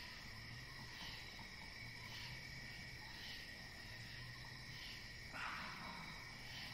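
A steady, high-pitched insect chorus, with a faint pulse about once a second. About five seconds in, a brief louder noisy sound cuts through it.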